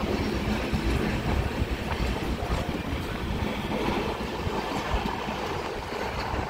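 Konkan Kanya Express passenger train running along the track: a steady rumble of the wheels on the rails.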